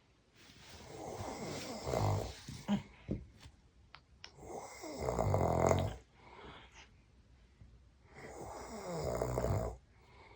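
A man snoring: three long snores about four seconds apart, the middle one the loudest.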